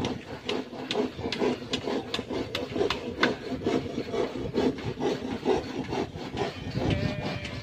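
Rhythmic scraping strokes, about two to three a second, with an even, steady pace.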